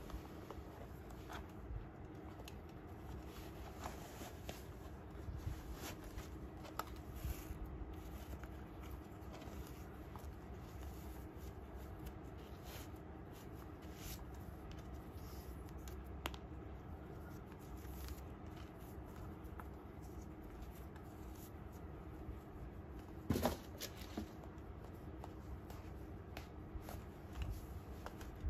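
Faint handling sounds of a Norda 001 trail running shoe being pulled on and laced: light rustling and scattered small clicks of the laces and shoe, with one louder knock about three-quarters of the way through, over a steady low hum.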